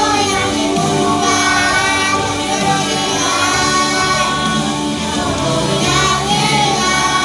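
A young child singing a song over instrumental backing music.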